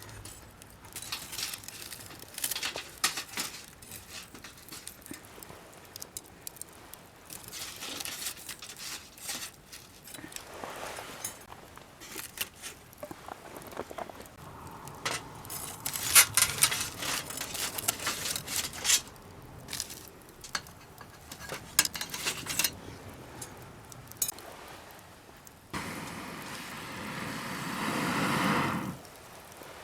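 Wood campfire crackling and popping in irregular bursts. Near the end a steadier rushing sound swells for about three seconds and then stops.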